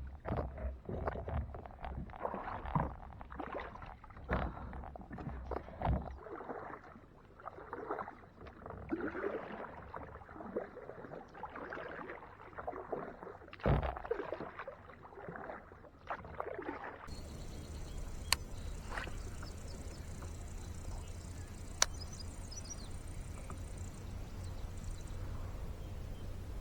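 Water splashing and sloshing in irregular strokes, with a few sharp knocks, for about the first seventeen seconds. After that, a steady low hum with two single clicks.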